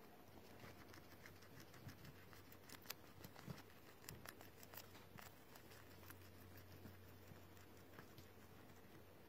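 Guinea pig chewing and tearing leafy greens: faint, quick crisp crunches and clicks, thickest in the middle.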